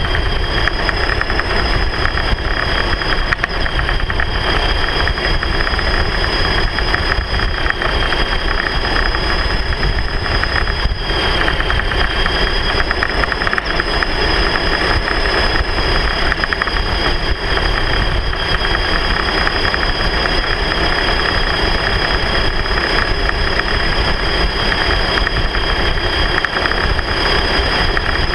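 A vehicle running steadily at low speed, with rumbling road noise and a constant high whine.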